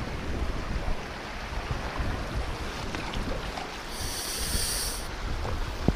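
Wind buffeting the microphone over the rush of a shallow river, with small splashes as someone wades and works his hands and a scoop net in the water. A brief high hiss stands out about four seconds in.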